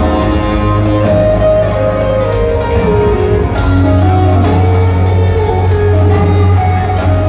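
A live electric guitar plays a slow lead melody through an arena PA, with some sliding, bent notes over held bass notes underneath. It is heard from the crowd.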